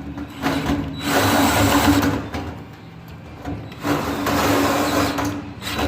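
A power tool runs in two bursts of a second or more each, over a steady mechanical hum. It is probably tightening the bolts as the replacement PTO brake valve goes back into the tractor.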